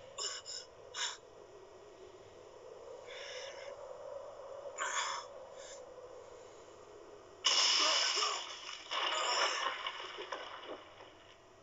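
Cartoon fight soundtrack: short gasps and strained grunts with brief hit effects, then a loud noisy rush starting about seven seconds in that fades over a few seconds.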